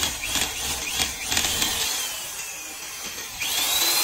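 Drill bit boring into a metal block, cutting and scraping in a quick run of rasping strokes, about three a second, over the first couple of seconds. Near the end a high whine rises and holds. The hole is being drilled out for re-threading a stripped bolt hole.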